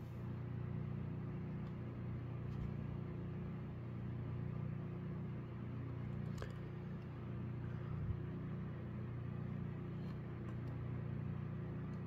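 A steady low hum, with two faint clicks about six and a half and eight seconds in.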